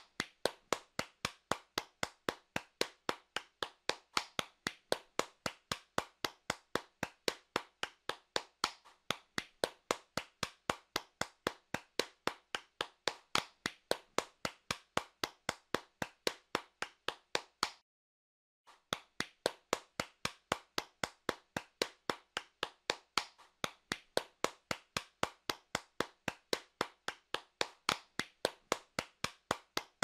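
Hands clapping, single sharp claps in a steady rhythm of about three a second, broken by a short silence just past the middle.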